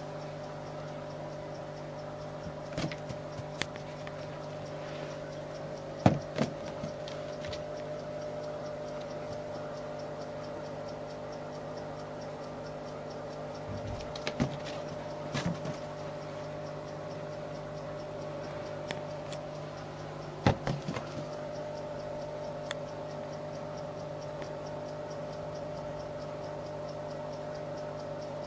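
A kitten pouncing at and batting a rubber balloon: scattered thumps and taps, the loudest a sharp pair about six seconds in, with further clusters later, over a steady low hum.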